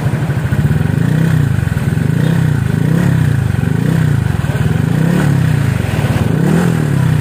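Honda Vario scooter's single-cylinder four-stroke engine idling through an aftermarket SKR racing muffler, its pitch swelling and dipping gently about once a second. The exhaust note is a calm rumble, not blaring.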